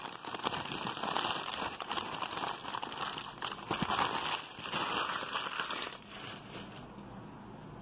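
Packing paper crinkling and rustling as hands dig through it, dying down about six seconds in.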